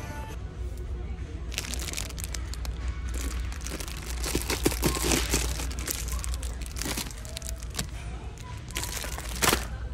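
Plastic candy wrappers crinkling as packages of gummy snakes are handled and taken off a shelf, in irregular crackles with a louder crinkle near the end, over a steady low hum.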